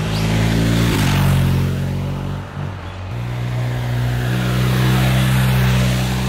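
BMW R1250R's boxer twin engine and exhaust as the motorcycle rides past under power. The steady engine note changes pitch about a second in and again around three seconds in.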